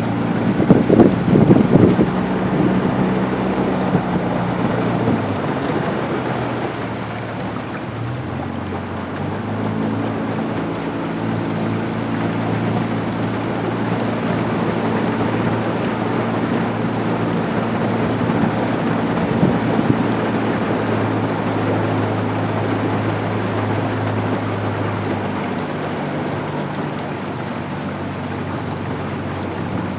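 A boat's motor running steadily under way, its pitch shifting about five and nine seconds in, over a dense rushing noise of wind and water.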